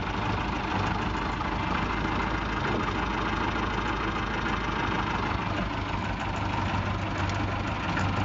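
Continental A-65 flat-four engine and propeller of a 1940 Aeronca 65TC running steadily at low power while the plane taxis, heard from inside the open-framed cockpit with a steady low drone.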